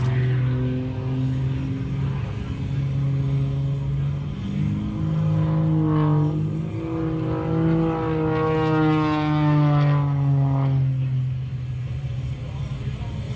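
Propeller airplane's piston engine droning overhead during an airshow. The pitch steps up around the middle and then slowly falls away.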